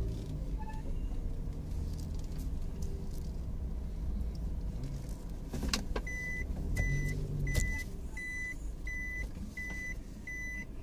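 Mazda Scrum kei van running slowly with a steady low rumble. About halfway through, a repeated electronic warning beep starts, a short tone about every 0.7 s, with a couple of clicks around it.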